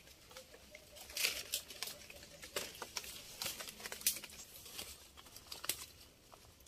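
Leaves and twigs in dense undergrowth rustling and crackling, with irregular sharp clicks and snaps as the foliage is handled.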